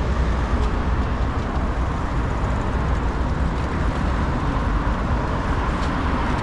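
Steady city road traffic: an even, low rumble of passing vehicles, with a few faint ticks over it.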